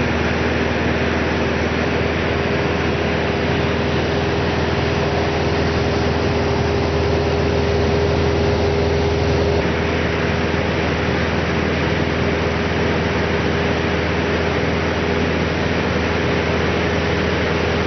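Light aircraft's engine and propeller droning steadily in flight, with a steady low hum and an even rush of air noise, swelling slightly about eight to nine seconds in.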